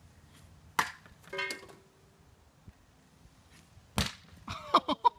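Hockey pucks shot at a sheet of half-inch drywall: two sharp cracks about three seconds apart, the second louder, as a puck punches a hole through the board. Each crack is followed by a brief rattle.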